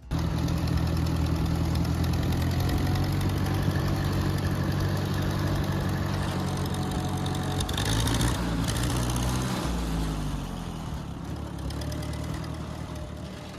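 Farm-vehicle engine running steadily, then slowing with its pitch falling about ten seconds in, over a constant roar of cicadas.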